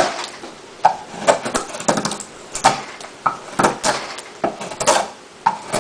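Multitool knife blade whittling a piece of wood: a run of short, sharp cutting strokes, about two a second and unevenly spaced.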